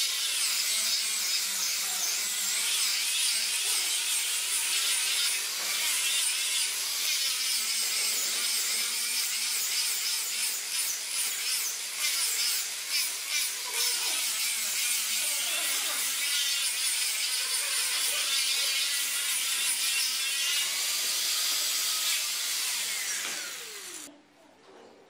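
Small corded handheld rotary power tool whining at high speed as it shapes and smooths a wooden stair-rail volute, with a scratchy sound of abrasion on the wood. The whine wavers in pitch as the tool is pressed and moved, and stops about a second before the end.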